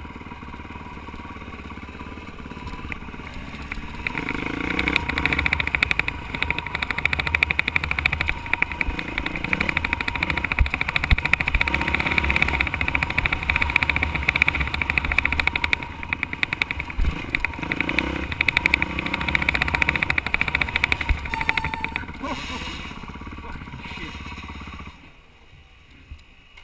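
Honda dirt bike's engine running on a steep single-track trail, rising and falling with the throttle. Near the end the engine sound drops away sharply as the bike comes to a stop.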